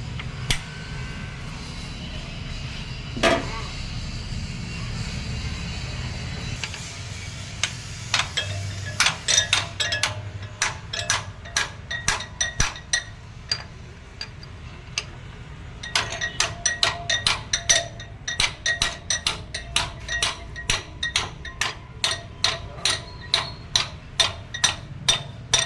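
Hammer striking metal engine parts, a run of sharp ringing blows about two to three a second, with a few single blows and a pause before it.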